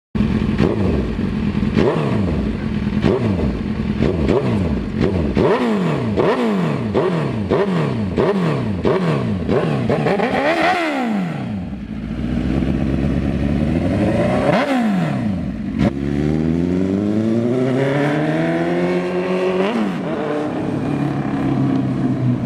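2007 Suzuki GSX-R1000's inline-four engine running loud and being revved in quick throttle blips, more than one a second, with two higher revs near the middle. Later the revs climb slowly and steadily for a few seconds, then drop back toward idle.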